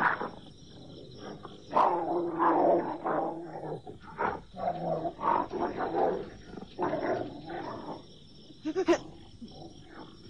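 A pack of cartoon wolves snarling and growling in a run of short, rough bursts, with a sharp, loud cry near the end.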